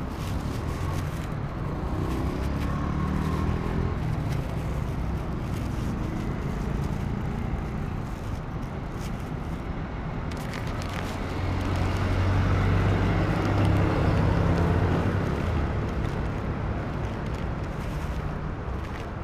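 Road traffic running steadily, with one vehicle's engine growing louder about twelve seconds in and fading a few seconds later. Short crinkles of a plastic bag and paper wrapping being handled come through now and then.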